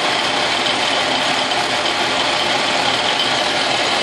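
Logan metal lathe running steadily, spinning an end mill in its collet while the power feed slowly carries the work into the cut: an even machine hum and cutting noise with no change in pace.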